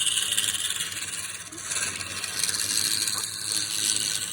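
Wood being worked on a spinning lathe: a steady hissing scrape, with a brief dip about a second and a half in.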